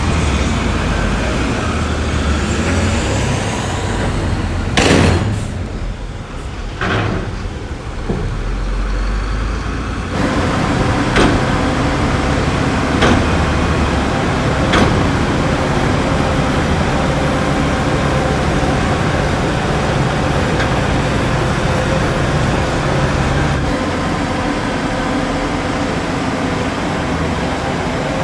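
Heavy diesel earthmoving machinery running steadily, with two sharp bangs about five and seven seconds in and lighter knocks a few seconds later.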